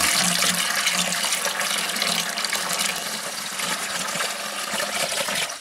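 Water pouring in a steady stream from a plastic jug, held turned sideways, into a plastic bucket already part full, splashing into the water below.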